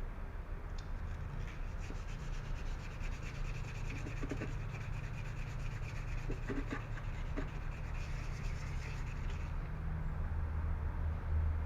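Sandpaper rubbed by hand over a car body panel, in rapid back-and-forth strokes that stop near the end, to smooth a spot where the paint has flaked off before it is repainted. A steady low hum runs underneath.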